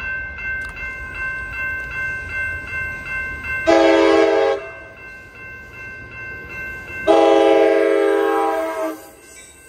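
Amtrak Pacific Surfliner train horn sounding two blasts as the train approaches the grade crossing: a short one about four seconds in and a longer one about seven seconds in. Under them, the railroad crossing bells ring in a steady rhythm.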